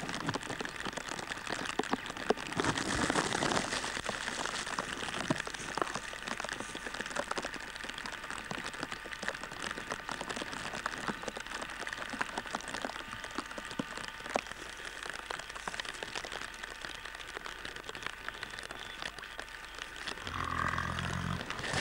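Steady rain falling, with many sharp drop ticks. Near the end a low sound with a steady pitch comes in.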